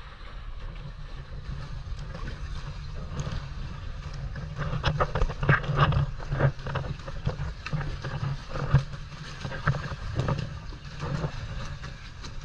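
Sea water slapping, sloshing and splashing against a rock cliff and around a kayak with its paddle strokes, the splashes coming thicker and louder about halfway through, over a steady low rumble of wind on the microphone.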